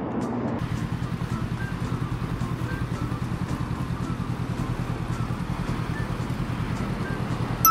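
Motorcycle engine idling, a steady fast low pulsing, with city traffic around it.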